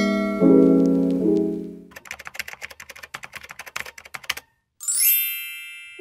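Piano chords for about two seconds, then rapid keyboard-typing clicks used as a sound effect for text being typed out, then a bright chime that rings and fades.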